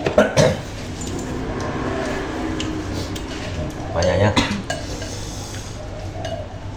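Chopsticks and spoons clinking and scraping against ceramic soup bowls during a meal of noodle soup, with sharper clinks about half a second in and again around four seconds.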